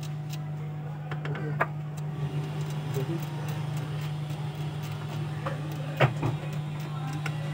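A steady low hum, with a few light clicks and taps from a steel pin working on a small metal-topped chip. The sharpest click comes about six seconds in.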